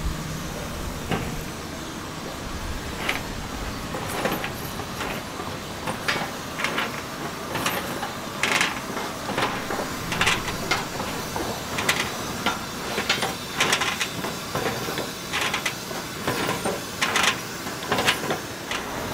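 Irregular metallic clanks, knocks and scrapes of egg-bread baking trays being handled and moved inside a drum-shaped street-vendor oven, growing busier after the first few seconds.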